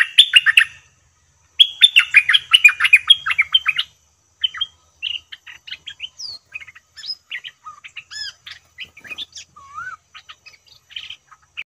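Bulbuls singing: two loud runs of quick, bubbling notes in the first four seconds, then softer scattered calls and short whistles, with a few rising and falling glides.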